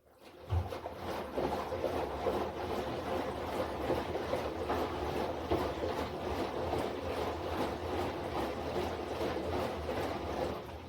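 Washing machine running: a steady low rumble of the motor and drum with a dense ticking rattle over it, starting abruptly about half a second in and cutting off near the end.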